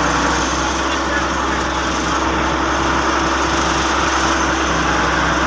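Hitachi EX100WD wheeled excavator's diesel engine running steadily, at an even, unchanging speed.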